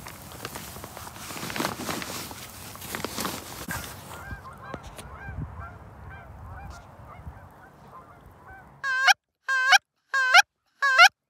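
Dry grass and the layout blind's cover rustling as they are handled for the first few seconds, then faint honking of distant geese. Near the end a hand-blown goose call gives four loud, short honks with gaps between them.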